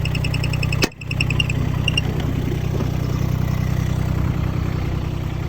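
Kubota K008-5 mini excavator's diesel engine idling steadily. Rapid, evenly spaced high electronic beeping stops about a second and a half in, and there is a sharp click just before that.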